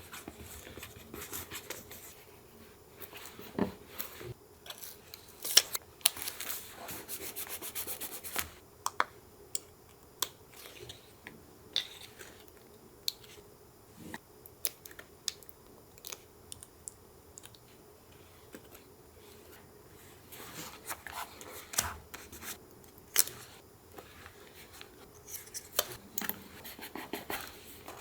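Paper collage crafting sounds: scissors snipping paper, paper rustling and rubbing, and irregular light taps and clicks, with a dense run of cutting or rustling about six seconds in.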